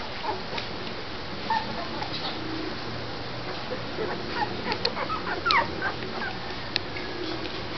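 Thirteen-day-old Labrador retriever puppies whimpering, a scatter of short, high squeaks that bunch together about halfway through.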